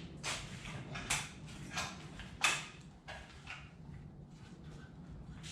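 DeWalt cordless power tools knocking and clicking as they are set into the cubbies of a wall-mounted tool hanger. It is a string of separate knocks, the sharpest about two and a half seconds in.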